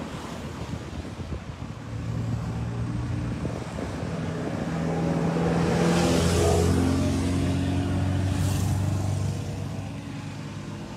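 A motor vehicle passing on the road: its engine hum and tyre noise build from about two seconds in, are loudest around the middle, and fade away near the end.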